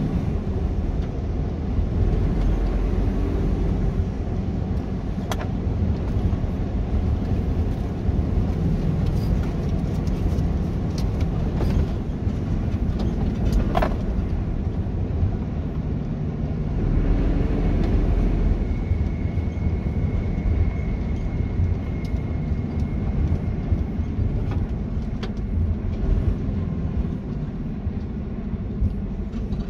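Heavy truck running, a steady low engine rumble with a few sharp clicks and knocks, and a faint high tone about two-thirds of the way in.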